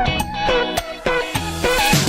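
Background music: upbeat funk-style track with guitar and a steady beat.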